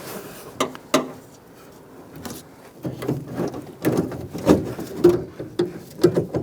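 Clicks and light rattling of the door handle's metal rod and plastic clips being worked loose inside a car door: two sharp clicks near the start, then a busy run of small knocks and rattles from about halfway.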